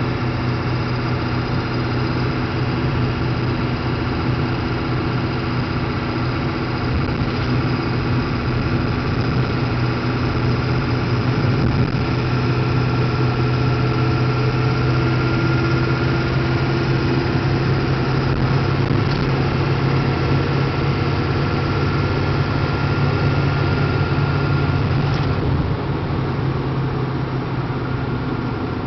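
A 7.3-litre diesel truck engine running steadily while driving, a low drone with road noise. About 25 seconds in the sound eases off slightly.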